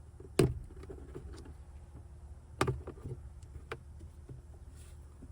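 Plastic clicks and knocks from a Honda Ridgeline's glove box being worked free of its side stops, with two louder knocks, one about half a second in and one past the middle, among lighter clicks.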